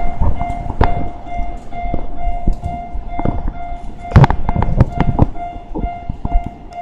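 Level-crossing warning bell ringing in an even on-off pattern about twice a second while a Ginza Line 01 series subway train passes. Its wheels knock irregularly over the rail joints, loudest about four seconds in.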